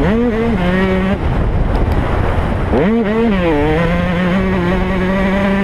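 KTM 125 two-stroke motocross engine under throttle: its pitch sweeps up sharply at the start and again about three seconds in, then holds steady. Wind noise buffets the microphone throughout.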